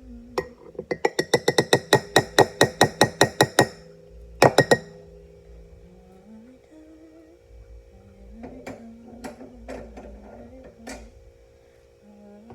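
Music: a fast run of sharp repeated notes, about six a second, then two loud strokes and later quieter scattered notes over a steady low tone.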